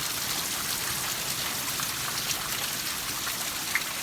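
Steady rain falling as a dense hiss, with scattered sharp ticks and one louder tick near the end, from the last few hailstones of a tapering hail storm.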